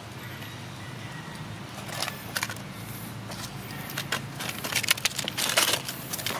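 Rustling and crackling clicks of monkeys scuffling over dry leaves and rough stone, a few at first and then a dense flurry about four and a half to six seconds in, over a faint steady low hum.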